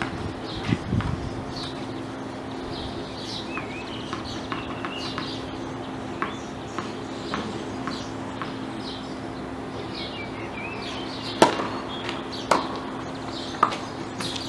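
Birds chirping now and then over a steady low hum, with three sharp tennis-ball knocks about a second apart in the last few seconds.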